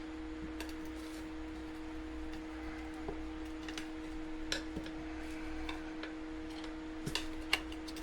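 Irregular light metallic clicks and taps of metal tire irons against a dirt bike wheel rim as the tire is worked off the rim, with a steady electrical hum underneath.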